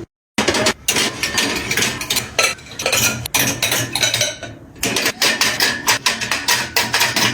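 Close-up clatter of kitchen items being handled and set down: a quick, uneven run of knocks, taps and clinks.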